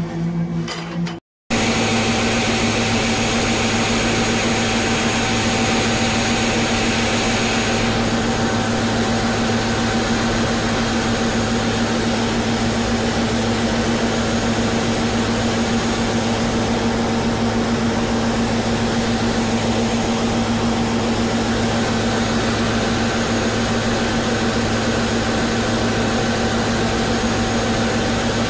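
Concrete paving machinery running: a steady, unchanging mechanical drone with a constant hum. It follows a brief dropout about a second in.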